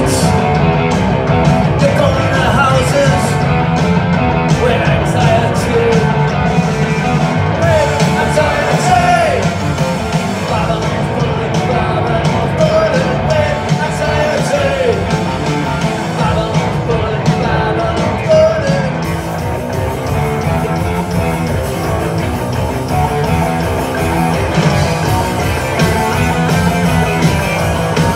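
Live punk rock band playing loudly in a hall, electric guitars, bass and drums with a sung lead vocal, heard from among the audience.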